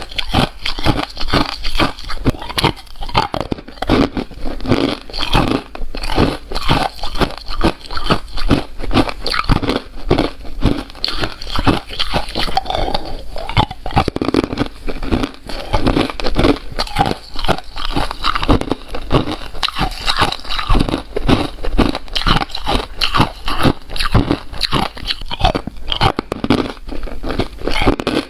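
Crunchy ice being bitten and chewed: a continuous rapid stream of crisp cracks and crunches, several a second.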